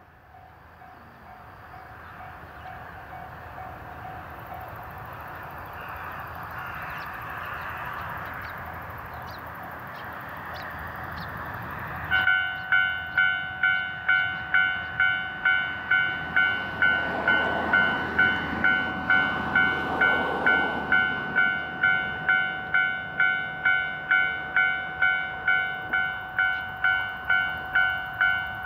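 Japanese level crossing warning bell starts about twelve seconds in, a ringing electronic chime pulsing about twice a second, the signal that a train is approaching. Before it, a rushing noise slowly grows louder.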